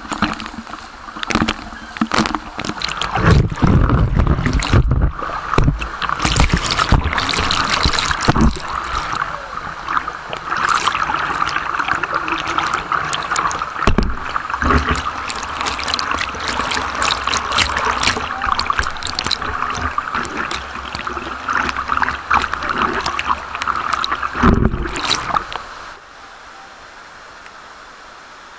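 Water rushing and splashing close to the microphone, with repeated knocks and low thumps over the first several seconds and once more near the end. It stops abruptly about 26 seconds in, leaving a quieter steady hiss.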